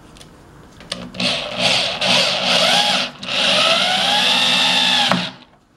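Power drill running in several short bursts and then a longer run of about two seconds that stops suddenly, driving fasteners into pallet wood.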